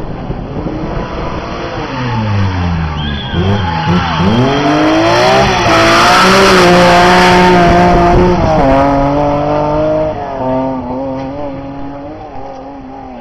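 BMW 325i race car's straight-six engine: the pitch falls and rises as the driver brakes and changes down into a bend, then it runs hard past, loudest about six seconds in, with tyres squealing. Two upshifts follow as it pulls away up the road.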